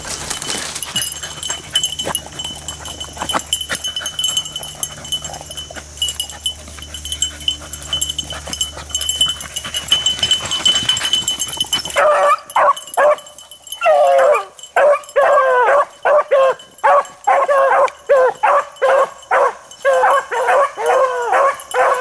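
Beagles baying as a pack, several voices overlapping in rapid repeated calls, the sound of hounds running a hot scent trail. This starts abruptly about halfway in. Before it there is only a steady high-pitched drone with faint scattered sounds.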